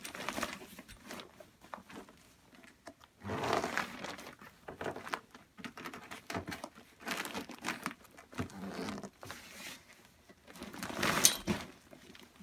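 A large IKEA bag and the clothes being stuffed into it rustling and crinkling in irregular bursts, loudest about eleven seconds in.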